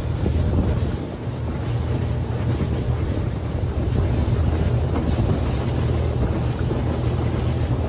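Inflatable dinghy's outboard motor running steadily under way, a low steady hum with wind buffeting the microphone and water rushing past.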